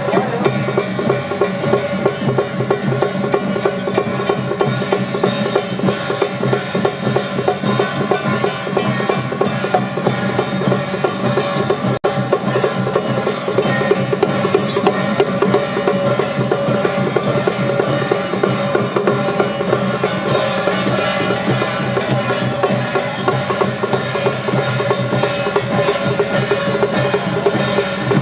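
Loud music with a steady percussion beat and sustained pitched tones, briefly cutting out about twelve seconds in.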